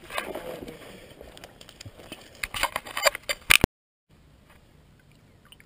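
Close handling noise from a fishing rod and pliers being gripped and moved through scrub: rustling and scraping with a cluster of sharp clicks about two and a half to three and a half seconds in. It cuts off abruptly, and after that only a faint low background remains.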